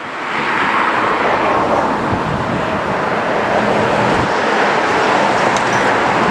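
Steady road traffic noise, an even wash of tyre and engine noise with no single vehicle standing out.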